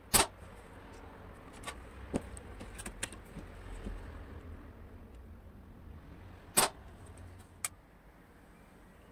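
Airsoft SVD Dragunov replica firing 0.20 g BBs: two sharp shots about six seconds apart, with several fainter clicks between and after them.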